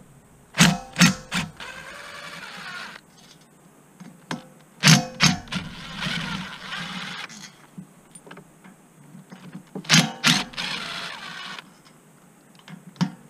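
DeWalt cordless driver with a socket extension backing out valve cover bolts on an ATV engine. Three times it gives a few sharp bursts and then runs steadily for a second or two as a bolt spins out. A fourth bolt starts the same way right at the end.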